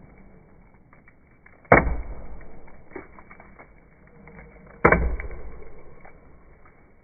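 Axe chopping into a standing tree trunk while cutting the felling notch: two hard strikes about three seconds apart, each with a sharp start that dies away over about a second.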